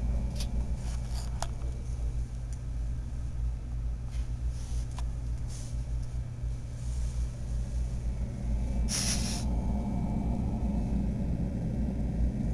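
Cooling fan behind the mirror of a Meade 10-inch Lightbridge telescope running steadily: a low hum with a faint high whine. A few light clicks come near the start, and a short burst of hiss comes about nine seconds in.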